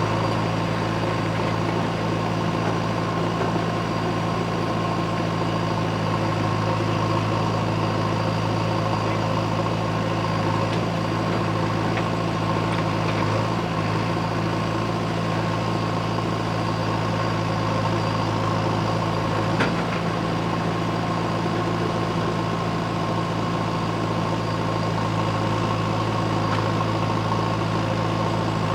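JCB 3DX backhoe loader's diesel engine running at a steady, even speed with a low hum, with one light click about two-thirds of the way through.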